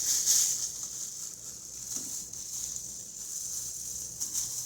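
Screwdriver turning a screw out of a plastic GFCI outlet housing, making faint, irregular scraping and ticking sounds over a steady high hiss.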